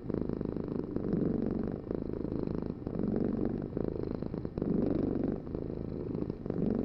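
Domestic cat purring continuously, the purr swelling and fading with each breath about every second and a half.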